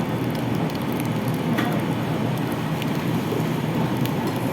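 Freshly baked French rolls crackling as their crusts cool and contract, a dense steady patter of tiny cracks.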